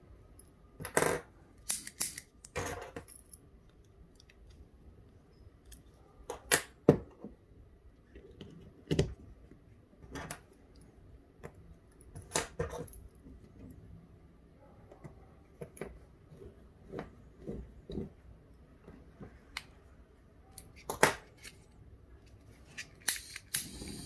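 Scattered clicks and taps of the small metal and plastic parts of a butane micro torch being handled and fitted back together. Right at the end, a couple of quick clicks of the igniter and the torch flame catching with a steady hiss.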